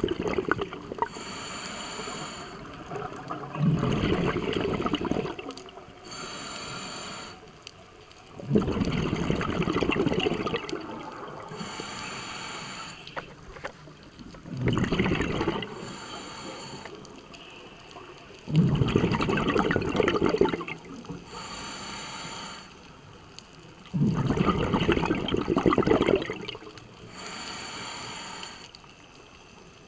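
A scuba diver's own breathing through a regulator, heard underwater in a slow, regular cycle about every five seconds. Each breath is a short hiss with a thin whistle as air is drawn through the demand valve, followed by a longer, louder gush of exhaled bubbles. There are about six breaths.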